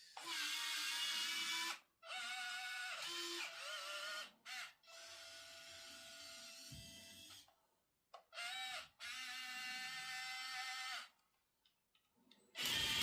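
Small electric gear motors of a Yigong 1:50 scale RC construction model whining in a series of short runs of half a second to two and a half seconds. Each run starts and stops abruptly, some with the pitch sliding as the motor changes speed, as the arm, bucket or drive is moved in bursts.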